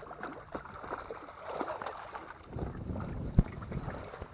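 Water splashing and sloshing as a hooked speckled trout thrashes at the surface beside a boat and is scooped up in a landing net. There is one sharp knock about three and a half seconds in.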